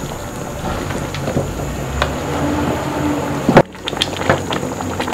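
Beef nihari bubbling in a large pot as a wooden spatula stirs it: a steady bubbling hiss with scattered small pops and knocks, and one sharp click about three and a half seconds in.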